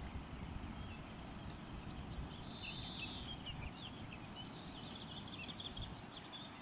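Small birds chirping and calling, with one longer, louder note about two and a half seconds in, over a steady low rumble.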